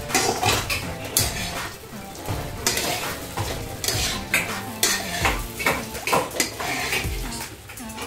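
Metal kitchen utensils clinking and scraping against pots and dishes: a string of irregular, sharp clatters.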